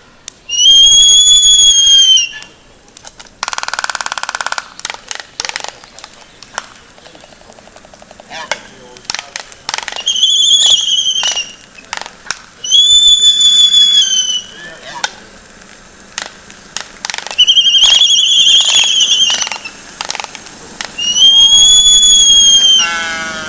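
Laysan albatross calling: five long, steady, high whistle-like calls, each lasting about one and a half to two seconds, with sharp clacks and short rattles between them.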